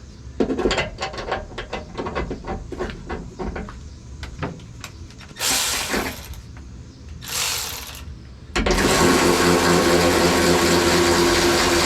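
Metal clinking and knocking, then a handheld power tool runs in two short bursts and then steadily for about three seconds to the end, with a steady whine.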